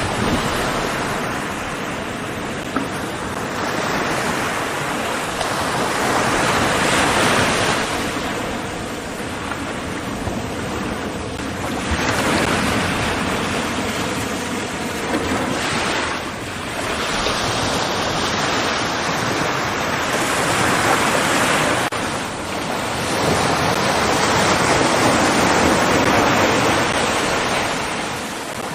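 Ocean surf: waves rushing in and washing back, swelling and fading every few seconds.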